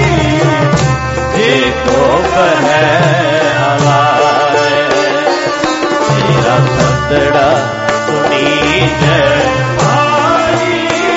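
Background music with a repeating drum beat and a wavering melody line.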